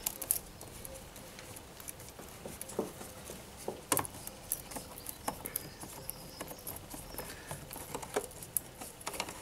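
Faint, irregular clicks and ticks of a 7 mm socket screwdriver turning the worm screw of a metal hose clamp on a rubber air-intake hose, loosening the clamp.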